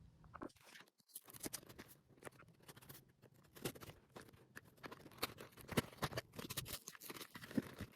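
Hands picking, scratching and handling a cardboard toy box to open it: faint, irregular small clicks and scrapes that get busier toward the end.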